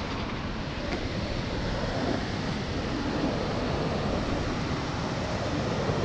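Ocean surf washing in steadily, mixed with wind buffeting the microphone.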